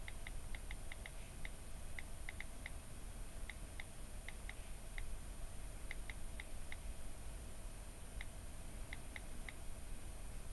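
iPhone on-screen keyboard key clicks: one short, high tick for each key tapped, in quick irregular runs with brief pauses between them.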